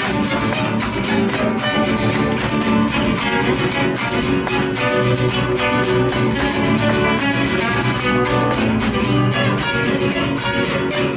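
Instrumental folk music led by strummed acoustic guitar, with steady, evenly repeated strums and no singing.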